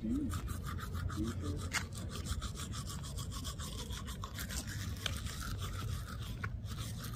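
Manual toothbrush scrubbing teeth in quick, even rhythmic strokes close to the microphone, over a steady low background hum.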